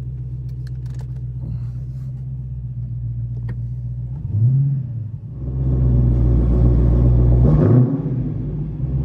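Dodge Hellcat's supercharged 6.2-litre Hemi V8 idling as it warms up after its first start in months. About four seconds in the engine note rises briefly, and from about halfway it runs louder.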